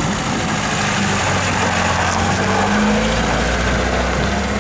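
Lada Zhiguli sedan's engine running as the car drives past close by, its pitch rising a little about three seconds in.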